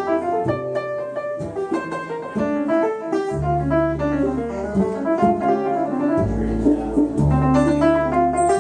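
A small jazz group playing: grand piano chords and runs over plucked upright bass notes, with light mallet strokes on congas.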